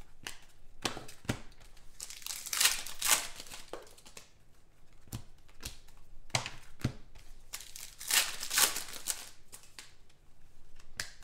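Trading cards being handled by hand: rustling and crinkling, with a few light clicks and taps as the cards are flipped and moved. The rustling swells twice, about two seconds in and again about eight seconds in.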